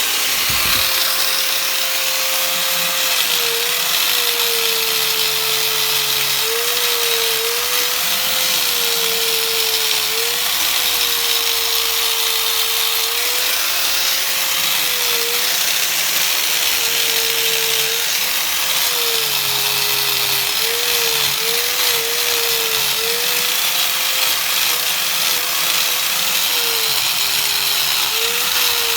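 Angle grinder polishing an aluminium engine case, its motor whine starting about half a second in and then repeatedly dipping and recovering as the wheel is pressed onto the metal, over a steady hiss of the wheel on the casting.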